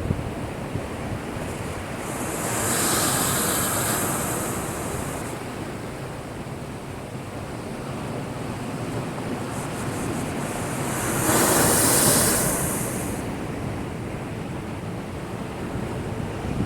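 Heavy typhoon-swell surf: a steady rumble of rough sea, with two bigger waves crashing against a breakwater, about three seconds in and again about eleven seconds in, the second the louder.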